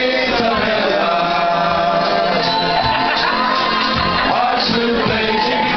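Loud music with singing, the voices holding long notes.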